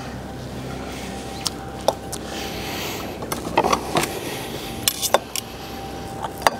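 Metal fork and knife clinking and scraping against a ceramic bowl and a cast-iron Dutch oven while serving braised beef: a few scattered sharp clinks over a steady low background hum.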